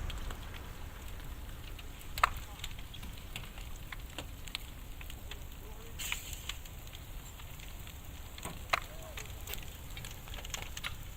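A burning tour bus crackling and popping, with scattered sharp pops over a steady low rush. The loudest pops come about two seconds in and near nine seconds.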